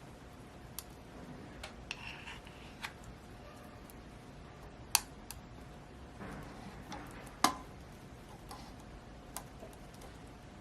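Scattered light clicks and taps of kitchen utensils and dishes being handled during yogurt-making, with two sharper knocks about five and seven and a half seconds in, over a faint steady hum.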